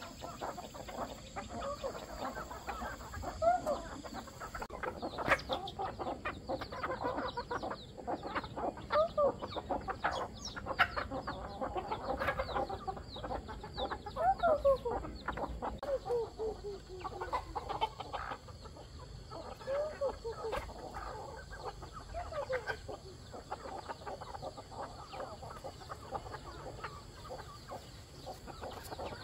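Chickens clucking, a string of short calls throughout, with scattered sharp taps among them.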